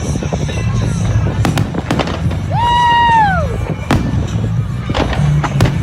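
Fireworks going off in a display, a string of sharp bangs at irregular intervals over music. A single whistling tone sounds near the middle, holding steady and then falling in pitch.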